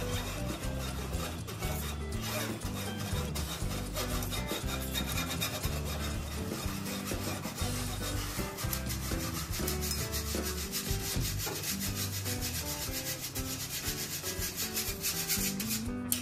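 A wire whisk scrapes dry flour and cocoa powder through a metal mesh sieve in rapid, repeated rasping strokes.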